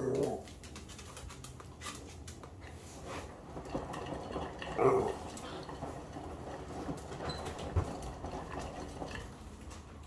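Hotpoint WMD960 front-loading washing machine in its wash phase: the drum turns wet, soapy laundry with water sloshing, and two louder swishing surges, one at the start and one about five seconds in.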